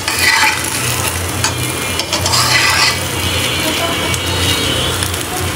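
Pieces of meat frying slowly in a pan over low heat, sizzling steadily as they give up their own fat. A metal spatula scrapes and stirs them twice, once at the start and again a little after two seconds in.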